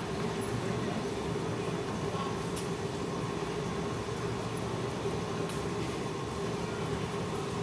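Steady mechanical hum and rumble filling a large indoor arena, with a constant tone, typical of the building's ventilation or heating fans. Two faint ticks come about two and a half and five and a half seconds in.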